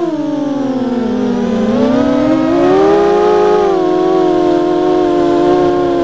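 Blackout Mini H racing quadcopter's brushless motors (MN1806 2300 kV, HQ5040 props) whining under throttle, heard through the quad's onboard microphone. The pitch sags over the first second and a half, climbs back by about three seconds, then holds fairly steady.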